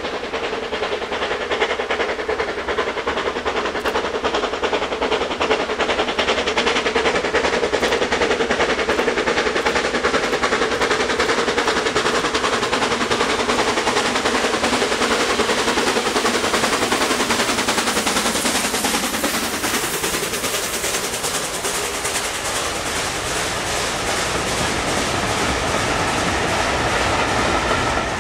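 Steam locomotive hauling a train of coaches past at close range, its exhaust beating rapidly and steadily while heavy smoke pours from the chimney, with the coaches rattling over the rail joints as they go by.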